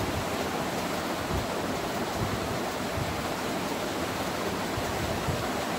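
Steady rushing background hiss with no distinct events.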